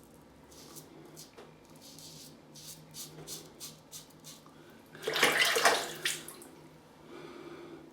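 Gillette Tech safety razor scraping through lathered stubble in short strokes, then a burst of running tap water for about a second, about five seconds in, as the razor is rinsed.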